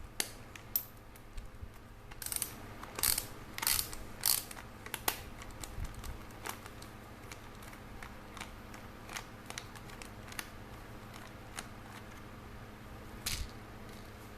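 Irregular sharp clicks and taps of a tri-wing screwdriver turning a tamper-proof screw out of a clothes steamer's plastic housing. A run of louder clicks comes about two to five seconds in, then scattered single clicks.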